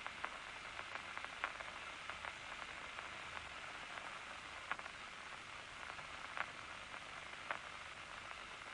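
Loudspeaker monitor of a locust nerve-cord recording giving a steady hiss with a few faint, irregular clicks. It is the resting background activity, with no large nerve impulses while the eye is unstimulated.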